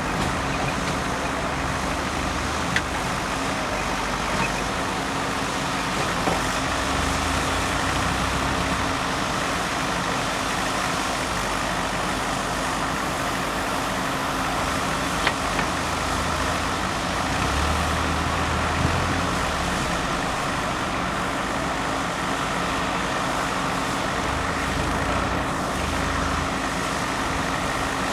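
JCB backhoe loader's diesel engine running steadily with a low hum. The low rumble swells a few times, and there are a few short sharp knocks.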